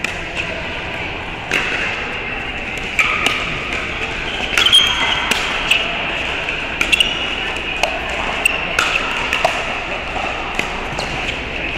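Pickleball paddles hitting a plastic pickleball back and forth in a rally: sharp pops at irregular intervals, a dozen or so over the stretch, over the steady background din of a busy hall.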